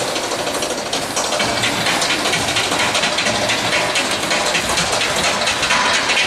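Audience applauding in an ice rink, a dense patter of many hands clapping, during a synchronized skating program.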